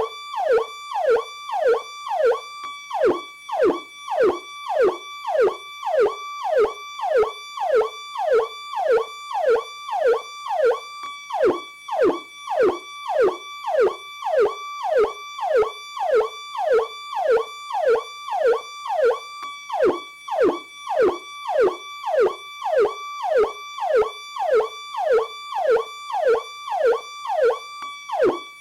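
Federal Signal PowerCall electronic police siren sounding its standard tone: a harsh electronic wail that holds high, then drops sharply, over and over, a little under twice a second.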